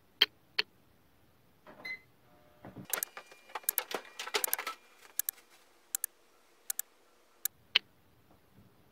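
Toaster oven controls being set: two sharp clicks, then about two seconds of rapid mechanical clicking and rattling that thins out to scattered single ticks.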